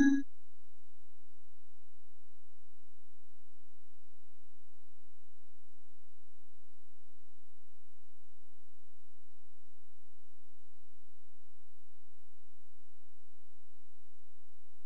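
A steady electronic tone: one held pitch with faint overtones, unchanging in level.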